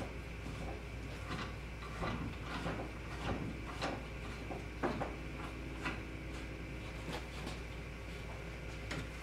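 Scattered plastic clicks and knocks as a kayak motor mount with battery box is handled and fitted against the kayak's side, the sharpest knock about five seconds in.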